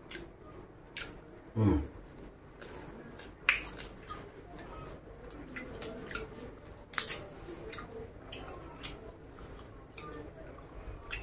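Close-up chewing of raw leaves, with crisp crunching clicks and the rustle of fresh leaves being torn and handled. Near the start there is a short low falling sound.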